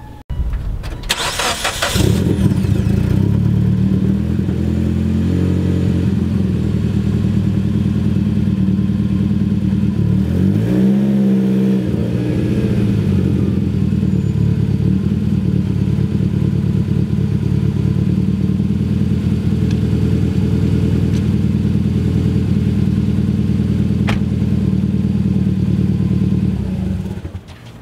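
Mitsubishi Lancer Evolution X's turbocharged four-cylinder, running cold on E85, cranks and catches on the first try without stalling, then idles steadily. About ten seconds in, the engine speed rises and falls briefly. It shuts off just before the end.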